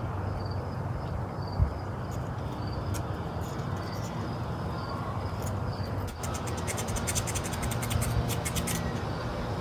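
Quick scratching strokes of a tool cleaning burned, rusty ignition breaker points on an outboard's magneto, starting about six seconds in, over a steady low hum.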